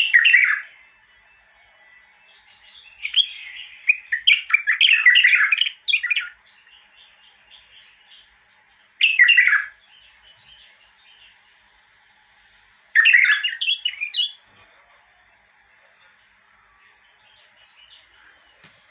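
A caged bulbul singing short phrases of quick, varied chirping notes, in four bursts with pauses between them, the longest about three seconds.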